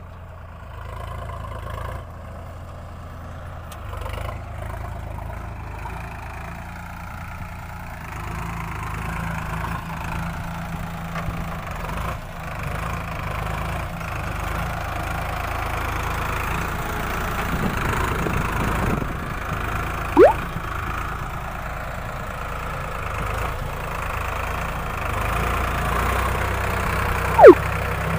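Sonalika Sikander RX 35 tractor's diesel engine running steadily under load while pulling a drain-forming ridger through dry soil, getting louder over the first ten seconds or so. Two short, very loud sweeping tones cut in, one rising about two-thirds through and one falling near the end.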